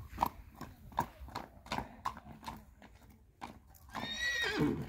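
Punjabi Nukra horse's hooves clip-clopping on a paved road at a walk, about two to three strikes a second, with a short pitched call near the end.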